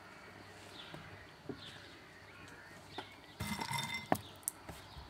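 A hand rummaging in a glass bowl of pistachios: a short rattle of shells against glass about three and a half seconds in, then a few light clicks. Faint birds chirp in the quiet before it.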